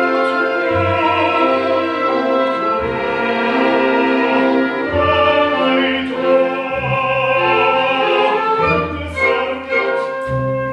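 Live operetta music: a theatre orchestra playing, with operatic voices singing over it in vibrato.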